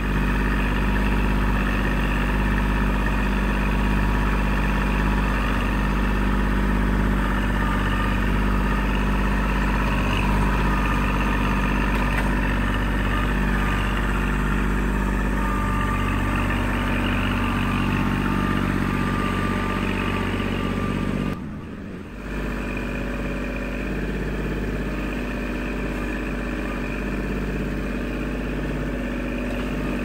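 Kubota L2501 compact tractor's three-cylinder diesel engine running steadily as the tractor grades dirt with its front loader. The sound drops out briefly about three-quarters of the way through, then carries on a little quieter.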